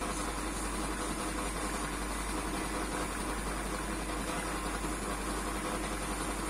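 A steady mechanical hum, like a motor running, with a thin high whine above it.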